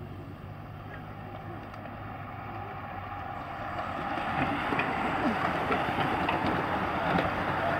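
A bunch of road racing bicycles sweeping past on concrete. A rushing whoosh of tyres and air builds as the pack approaches and holds for the last few seconds, with scattered light clicks.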